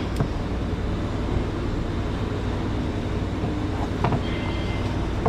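Steady low mechanical rumble of a working auto repair shop, with a few faint metallic clicks of a hand tool working at a stuck oil filter.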